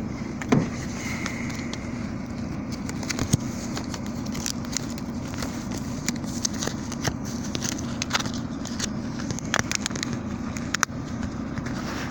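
A car engine idling steadily, with scattered short clicks and crackles over it.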